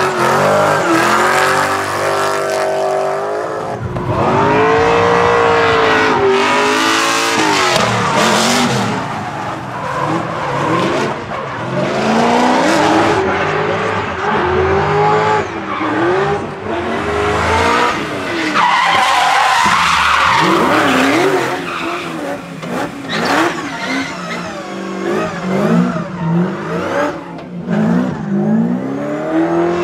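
BMW E46 drift cars sliding: engines revving up and down hard over and over, with tyres screeching in long slides.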